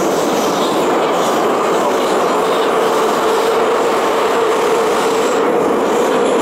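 Inside a Moscow Metro carriage while the train runs through a tunnel: a steady, loud rumble of wheels and running gear with one held mid-pitched hum over it.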